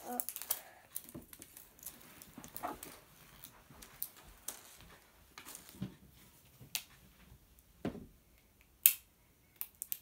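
Soft, scattered rustling and clicking of a plastic-wrapped surprise toy ball being peeled open by hand, with a sharper click about nine seconds in.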